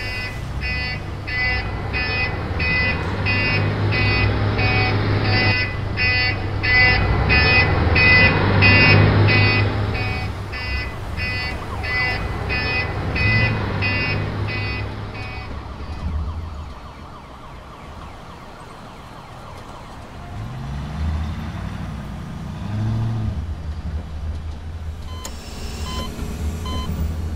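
A model truck's reversing alarm beeping rapidly and evenly over a low engine drone. The beeping stops about two thirds of the way through, leaving the engine sound rising and falling in pitch.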